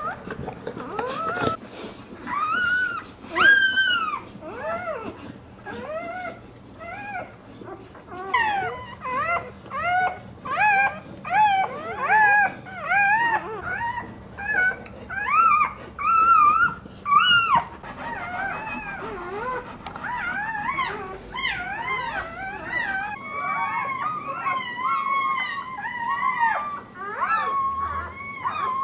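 Newborn pit bull puppies squealing and whimpering in short, high-pitched cries that rise and fall, at about one a second through the middle, then several pups crying over one another near the end.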